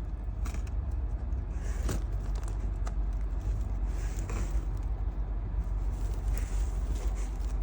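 Rustling and scraping of packing material being taken out of a reptile shipping box, in scattered short bursts over a steady low rumble.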